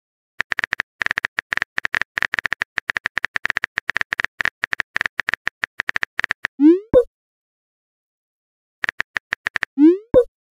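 Rapid clicking of a phone keyboard typing sound effect, stopping for a rising bubble-pop message sound about two-thirds of the way in. After a short silence the clicking resumes briefly and a second pop follows near the end as a new chat message appears.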